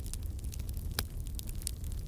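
Wood fire in a fireplace crackling, with scattered small crackles over a low steady rumble and one sharper pop about a second in.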